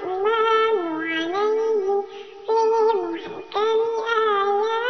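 A high voice singing shalawat, an Islamic devotional chant in praise of the Prophet, in long held, ornamented notes that glide between pitches, the phrases broken by two short breaths.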